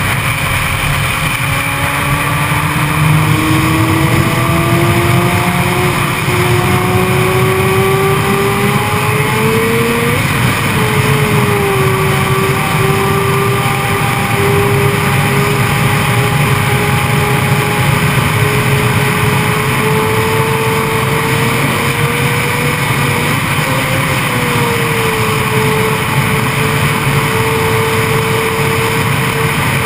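Yamaha YZF-R6's inline-four engine pulling hard at high speed, its pitch climbing steadily, dropping briefly at a gear change about ten seconds in and again near the end, then holding high. Heavy wind rush over the helmet-mounted camera runs under it throughout.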